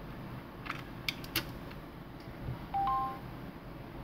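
A USB cable plug clicking into a USB tester: a few small plastic clicks, then a dull knock. A short two-note electronic beep follows, a lower note then a higher one, as the charging connection is made.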